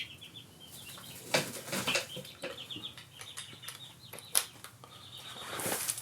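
Hand tools knocking and clinking on the motorcycle's clutch assembly while a tight lock nut is worked loose, with a run of short high chirps throughout.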